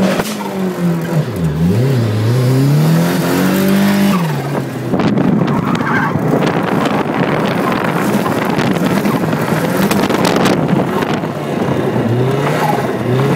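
Turbocharged Speedster roadster heard from the cabin at speed on track: the engine note drops and climbs through a shift or corner, then from about five seconds is buried under loud rushing wind and tyre noise, rising again near the end.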